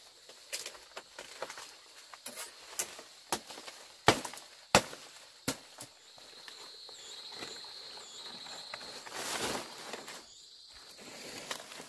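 A blade chopping through fan-palm leaf stalks: several sharp separate cracks in the first half. Later the stiff fronds rustle as they are handled and laid down, with a faint high steady whine in between.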